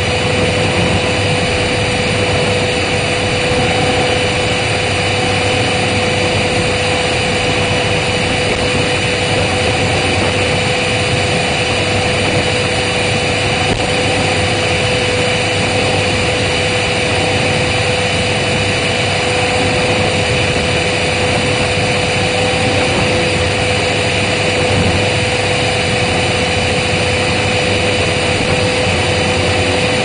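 Vacuum cleaner motor running steadily and loudly: a constant rush of air with a steady hum tone over it.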